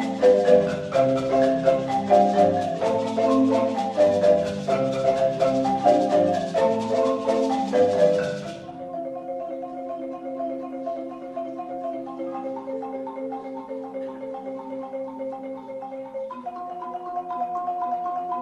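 An ensemble of wooden marimbas struck with mallets, playing a repeating, interlocking rhythmic pattern. A little before halfway the playing drops suddenly to a softer, duller level, and it picks up a little near the end.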